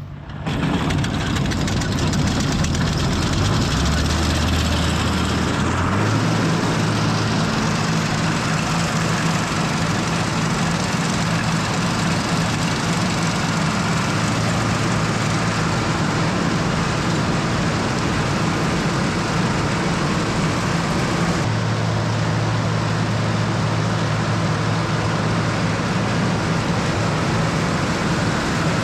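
International 686 tractor engine running steadily, driving the New Idea corn picker; its pitch steps up about four to six seconds in as the engine comes up to speed, and shifts again a little after twenty seconds.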